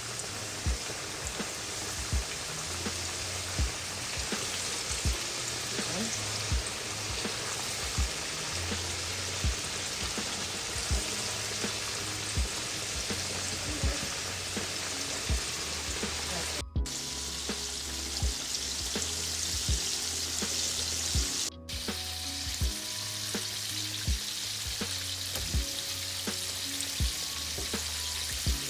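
Chicken frying in hot oil: a steady, dense sizzle.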